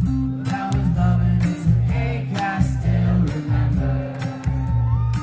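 Live band music: strummed acoustic guitar over a steady, pulsing bass line, with voices singing.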